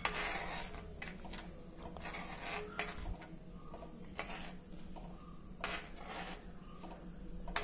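Steel spoon stirring milky vermicelli payasam in a metal uruli, scraping and knocking against the pan's bottom and sides in irregular strokes, over a low steady hum.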